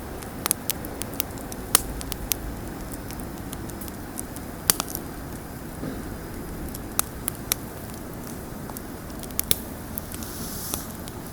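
Wood campfire burning: sharp, irregular pops and crackles, sometimes two or three close together, over a steady low rushing sound, with a brief soft hiss near the end.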